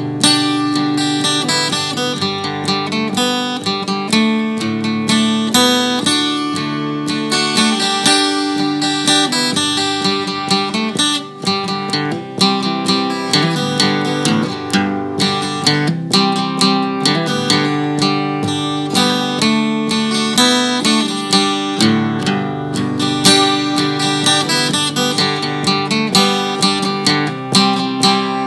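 Acoustic guitar music, strummed and picked notes at a steady rhythm, laid over the footage as background music.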